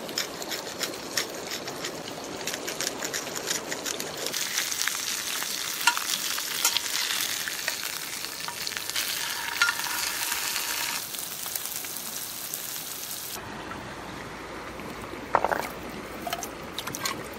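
Whole trout frying in a cast-iron skillet, a steady sizzle thick with fine crackles and pops, as a metal spatula turns the fish. Near the end the sizzle stops and a couple of sharp knocks follow.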